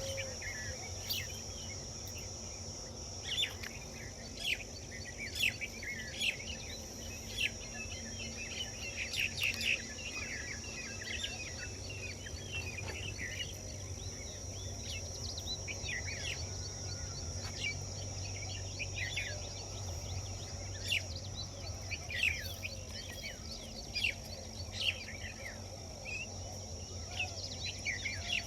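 Many short bird chirps scattered throughout over a steady, high insect whine, with a faint low hum beneath.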